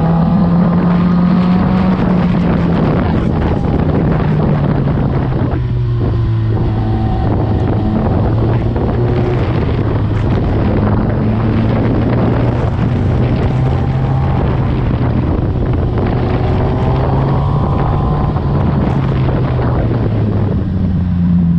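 Suzuki GSX-R1000's inline-four engine heard from onboard under heavy wind noise: the revs fall a few seconds in, the engine runs at a lower, steady pitch, and the revs rise again near the end.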